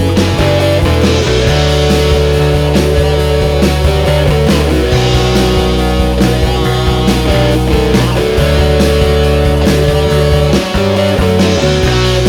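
Rock background music with guitar: sustained bass notes and held chords over a steady beat.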